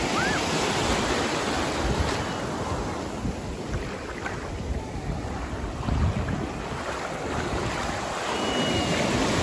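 Sea surf breaking and washing over the shallows in a steady rushing wash, with wind buffeting the microphone.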